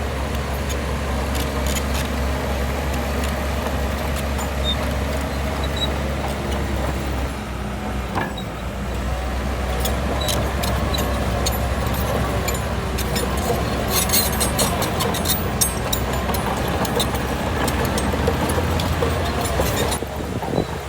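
Diesel engine of a heavy earthmoving machine running steadily, its drone shifting down about seven seconds in. Over the last several seconds it is joined by a rapid series of sharp metallic clicks and rattles.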